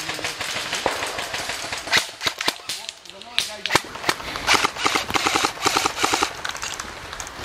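Airsoft rifles firing: scattered sharp single shots, then a fast full-auto burst of evenly spaced clacks from about four and a half to six seconds in.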